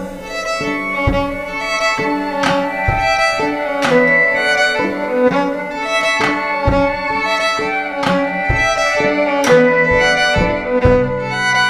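Violin bowed in a live song over a drum kit, with a drum and cymbal hit landing about every second and a half.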